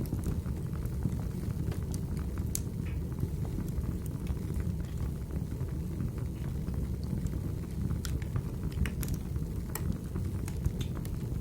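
Wood fire burning in a fireplace: a steady low rumble from the flames, with scattered, irregular sharp crackles and pops from the burning logs.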